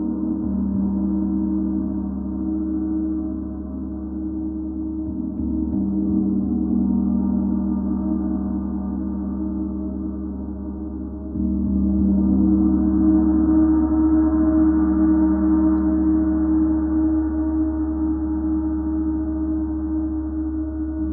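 A 32-inch planetary gong played continuously with two small mallets: a sustained wash of many overlapping steady tones that rises and falls in level and swells up noticeably about 11 seconds in.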